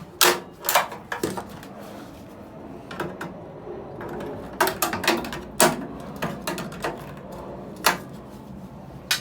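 Irregular clicks, knocks and clatters of tools and sheet-metal parts being handled while the underside of a microwave oven is taken apart.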